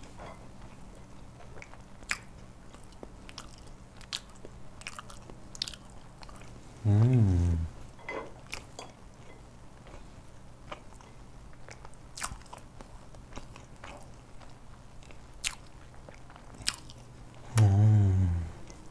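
A person eating freshly baked sponge cake: quiet chewing and scattered short clicks, broken twice by a long, low hummed "mmm" of approval that falls in pitch, about seven seconds in and near the end.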